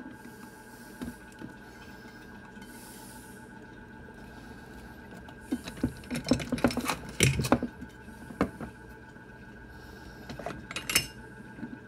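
Resin wash station's washing motor running with a steady hum and whine, while hard objects are handled and set down: a run of knocks and clunks about six to seven and a half seconds in, and a few more near the end.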